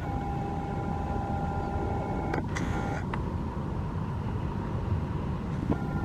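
Wind buffeting the microphone outdoors, a steady low rumble with no speech, and faint steady high tones over it for the first couple of seconds.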